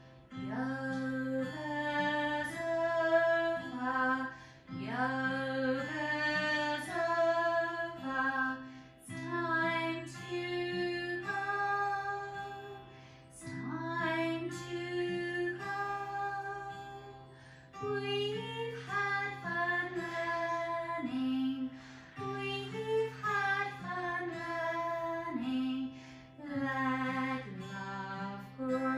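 A woman singing a gentle children's goodbye song in short phrases, over a held low accompanying note that changes every few seconds.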